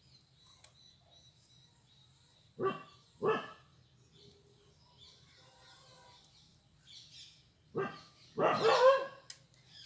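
A dog barking: two short barks a little over half a second apart about two and a half seconds in, then another bark and a longer drawn-out bark near the end.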